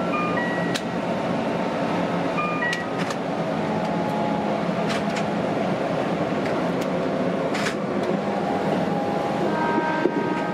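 Keihan electric train running at speed, heard from inside the driver's cab: steady rolling noise with a sharp click every second or two, and short high tones that come and go.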